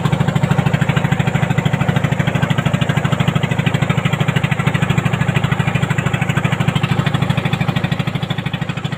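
A fishing trawler's diesel engine running steadily, with an even, rapid low thump of about ten beats a second.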